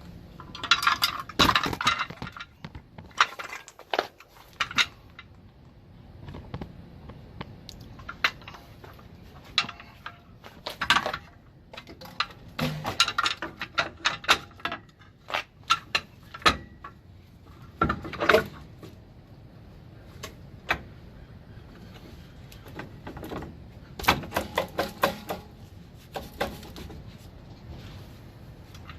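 Metal parts clinking and knocking as an air brake shoe and its springs are handled and fitted onto a truck's drum brake: scattered sharp clanks, some in quick clusters, with pauses between.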